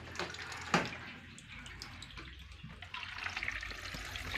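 Water running from a tap in a steady hiss, with a single sharp knock about a second in.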